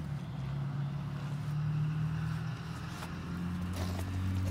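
Steady low mechanical hum, like an engine idling.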